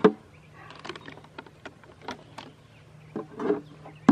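Handling noises as a bass that jumped out of its container is put back in: a loud knock at the start, then scattered taps, clicks and rustles. A small battery-run motor hums steadily and low underneath.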